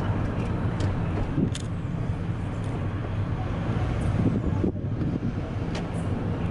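Car driving along, with a steady low engine and road rumble and a few faint clicks.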